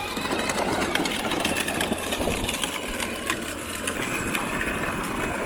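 Child's ride-on tractor driving along, a steady mechanical running noise peppered with many small clicks.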